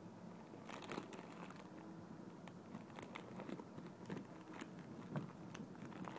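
Faint, irregular crinkles and small clicks of a squishy's plastic retail packaging being handled.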